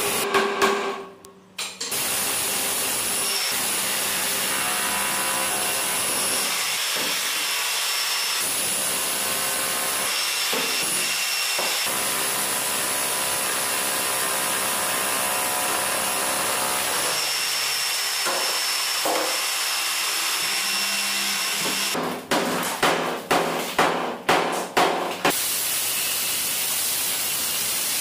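Electric demolition hammer with a chisel bit running steadily as it breaks up a granite-topped concrete kitchen counter, cutting out briefly about a second in. Near the end it comes in a run of short on-off bursts, about eight in three seconds.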